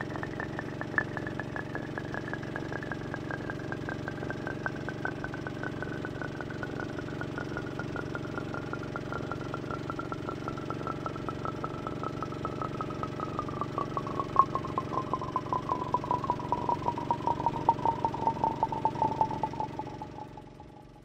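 Boat motor running steadily on the river, with a high pulsing whine that slowly falls in pitch and grows louder in the second half, then fades out near the end.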